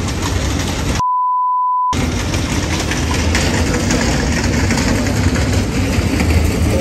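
A single steady high beep lasting just under a second, about a second in, with all other sound cut out beneath it: an edited-in censor bleep. Around it, steady outdoor street noise with a low rumble.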